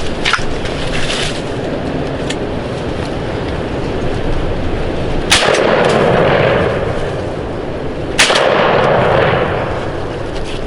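Two shotgun blasts about three seconds apart, each followed by a rolling echo that dies away over a second or so, over steady wind noise on the microphone.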